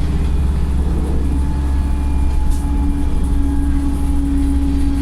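Wright StreetLite single-deck bus's diesel engine running under way: a steady low drone, with a steady whine joining it about a second in.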